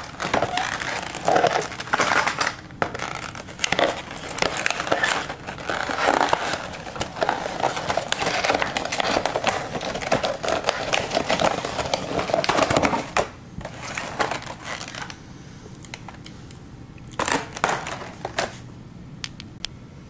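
A cardboard model-aircraft box and its plastic packaging being opened and handled: dense crinkling and rustling with many small clicks for about the first thirteen seconds, then a few shorter rustles and light clicks.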